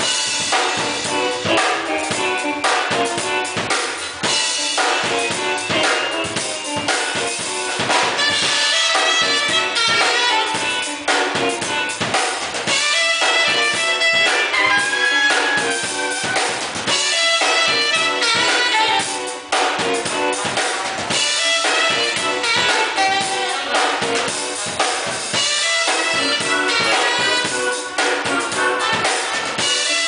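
Live band playing, led by a drum kit with fast snare and bass-drum strokes under saxophone and other horn lines.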